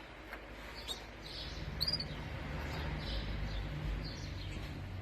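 Canaries chirping with short, high calls, over a low steady rumble that sets in about a second and a half in.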